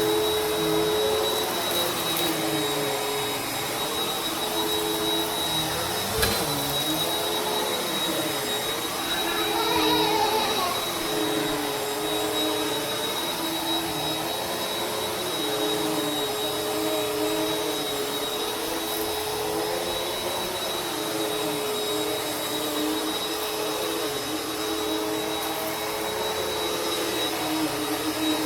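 Vacuum cleaner motor running steadily with a high whine, its lower hum wavering up and down every second or two. There is a single click about six seconds in.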